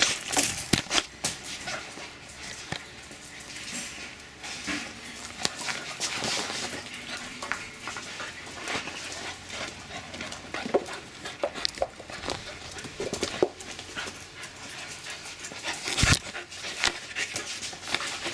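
Dogs moving about and panting close by, with scattered clicks and knocks throughout and a loud knock about 16 seconds in.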